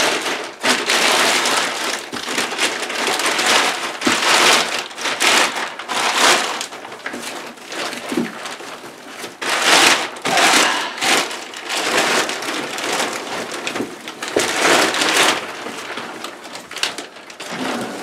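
Clear plastic packaging crinkling and rustling in irregular bursts as a rolled inflatable kayak is worked out of its bag and film wrap.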